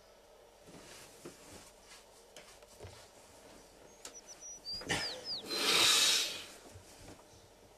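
Bedding rustling as a sleeper rolls over on the bed, a swell about a second long two-thirds of the way in. It is led by a knock and a few quick high squeaks.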